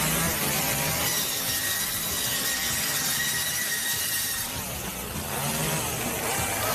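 Running chainsaw revved up to a high, steady whine about a second in, held for roughly three and a half seconds, then dropping back to a lower, unsteady running speed.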